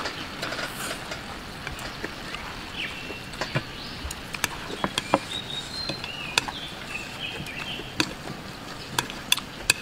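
A person eating with chopsticks from a bowl: sharp clicks and mouth smacks scattered throughout, coming more often after a few seconds. Birds chirp in the background.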